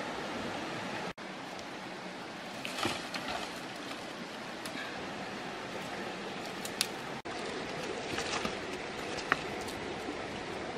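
Steady outdoor rushing hiss with a few light clicks and taps scattered through it. The sound drops out for an instant about a second in and again after about seven seconds.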